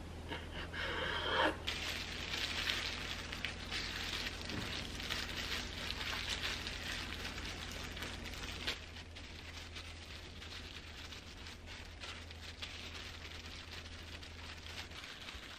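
A knife slices through raw bacon on a wooden cutting board, then disposable plastic gloves crinkle and crackle as hands wrap the bacon strips around rice-cake sticks; the crinkling is densest in the first half and thins out later. A steady low hum runs underneath.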